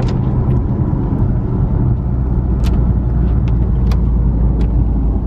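Car driving on a rough road, heard from inside the cabin: a steady low rumble of engine and tyres, with a few sharp ticks in the second half.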